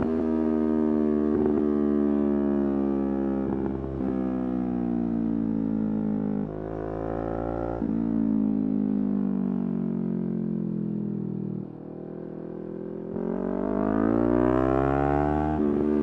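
Yamaha R3's parallel-twin engine under way, its pitch sinking slowly and shifting in steps. It drops off about three quarters of the way in, then climbs steeply as the bike revs up near the end.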